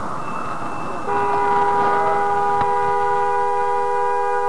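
Car horn sounding one long held blast, starting about a second in, two steady notes together, over road noise heard from inside the car.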